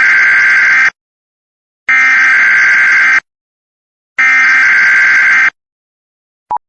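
Emergency Alert System end-of-message data tones: three harsh, buzzing bursts of about a second each, spaced about a second apart, marking the end of the alert. A short beep follows near the end.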